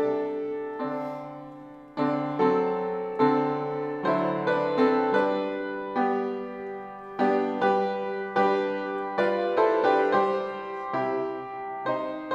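Solo piano playing a slow postlude: chords struck every half second to a second, each ringing and fading before the next.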